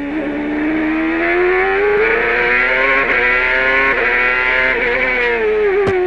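Onboard sound of a 2002 CART Toyota turbocharged V8 racing engine at full power, its pitch climbing steadily as the car accelerates, with brief breaks about three and four seconds in. The pitch drops near the end, and a sharp click comes just before the end.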